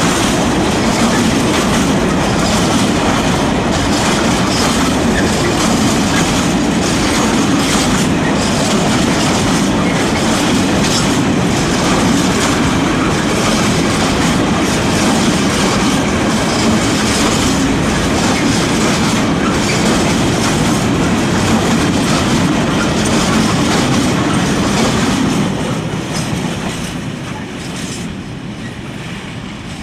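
Freight train of open box wagons rolling past close by: a steady rumble and clatter of steel wheels on the rails, fading near the end as the last wagon goes by.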